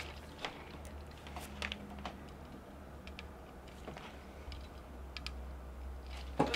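Scattered light clicks and taps of metal test-lead tips touching the pins of a circuit board, over a faint steady low hum.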